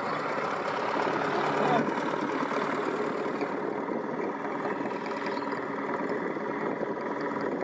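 The small overhead-camshaft four-cylinder engine of a vintage MG M-type Midget running steadily at low revs as the car moves slowly.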